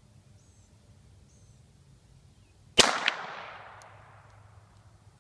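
.22 revolver firing a single shot about three seconds in; the sharp report rings out and dies away over about two seconds.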